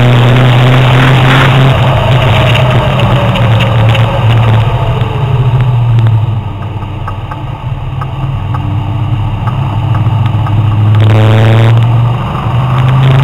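Sports car's engine heard from inside the cabin, pulling hard at high speed. About six seconds in it goes quieter and lower as the driver lifts off and brakes hard for a corner. It rises again in pitch near the end as the throttle is reapplied.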